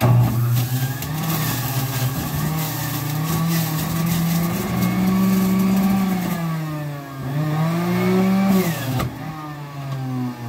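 Electric juicer motor switching on abruptly and running loud, its pitch sagging and recovering twice as a cucumber is pushed through it.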